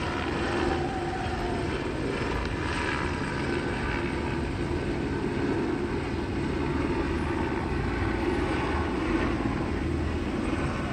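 Steady droning of aircraft rotors: a continuous hum at an even pitch over a wash of outdoor noise.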